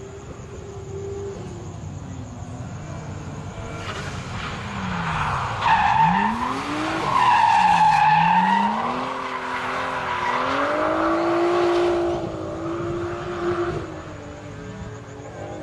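A drift car's engine revving up and down as it slides through a corner. Its tyres squeal loudly for about ten seconds, starting a few seconds in and peaking in the middle, and the engine settles to a steadier note near the end.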